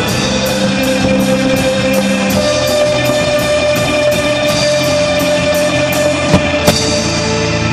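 Live rock band playing an instrumental passage: electric guitar holding a long note over electric bass and a drum kit, with a steady high tick about three times a second. Two sharp drum hits land near the end.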